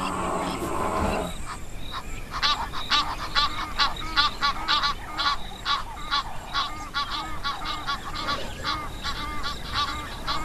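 A flock of Egyptian geese calling: many short, rapid honks, several a second and overlapping, starting about a second and a half in after a brief lower, rougher sound.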